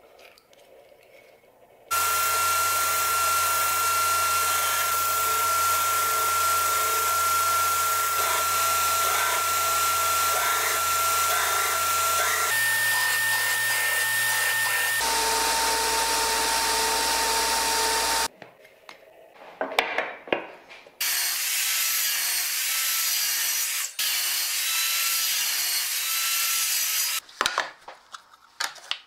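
Belt grinder running, its abrasive belt rubbed with a crepe rubber cleaning stick. The work is edited into several loud stretches of steady machine noise, each with its own whine and hum, with brief quiet gaps and a few clicks between them.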